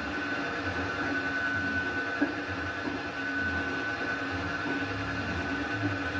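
Metal lathe running steadily while it cuts the welded-up bush seat of a backhoe loader's hydraulic swing cylinder, with a constant high whine and low rumble. A short sharp tick comes twice, about two seconds in and near the end.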